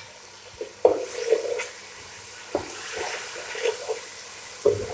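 Wooden spoon stirring and scraping spiced onion-tomato masala around a nonstick pot, in irregular strokes over a faint frying sizzle.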